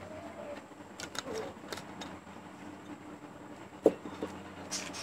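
A few light clicks and knocks of objects being picked up and handled on a shelf, the loudest a single knock about four seconds in, over a faint steady hum.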